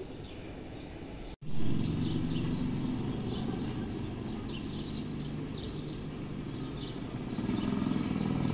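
Small birds chirping repeatedly in short high calls over a steady low rumble. The sound cuts out for an instant about one and a half seconds in, and the rumble is louder afterwards.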